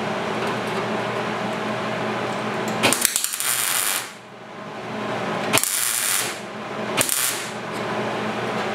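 MIG welder tack-welding a thin sheet-steel patch panel into a car's lower front quarter panel: three short crackling bursts of welding, the first about a second long, then two shorter ones, over a steady background hum.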